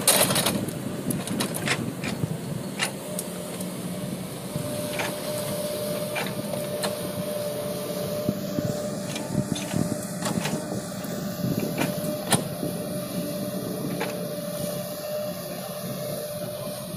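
Excavator diesel engine running steadily with scattered knocks and clanks, and a steady whine that joins in about four seconds in.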